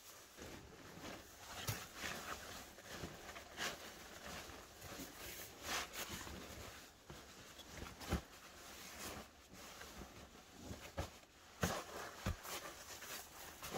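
Rustling of dry pine needles and a ground sheet being spread over them by hand, with a few soft thumps scattered through.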